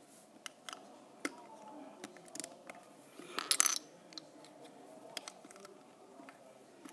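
Plastic Lego bricks clicking and tapping as they are handled and pressed onto a small base plate: scattered faint clicks, with a denser clatter of clicks about three and a half seconds in.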